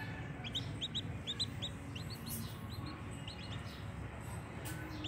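Newborn chicks peeping: short, high cheeps that slide upward, coming in quick runs of two or three from about half a second in.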